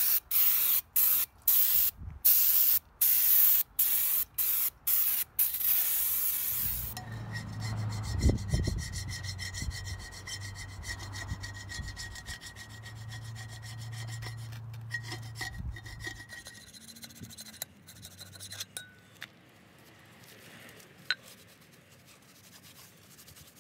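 Quick repeated rasping strokes of a scraper on the flange of a steel differential cover, scraping off old RTV gasket sealant. After about seven seconds it gives way to quieter, slower rubbing and wiping, with a low hum underneath for several seconds.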